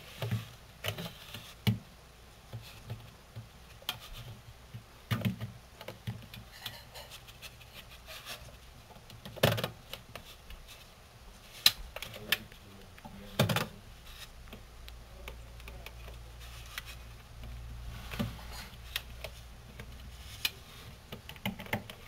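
Irregular clicks, taps and knocks of a tamandua rummaging among plastic food tubs and wire shelves inside a fridge, with a few sharper knocks near the middle.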